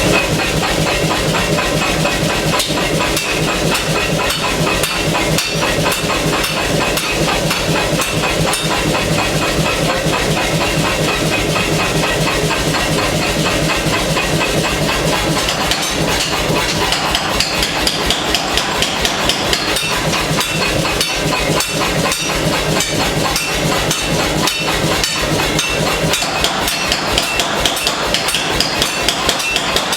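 Pneumatic air hammer pounding hot steel in a fast, steady rhythm of blows over a steady hiss, the strikes standing out more sharply in the second half.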